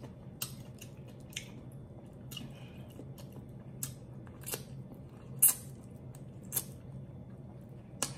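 Close-miked wet eating sounds from a mouth working on lobster: scattered lip smacks and squishy chewing, about eight sharp clicks with the loudest about five and a half seconds in.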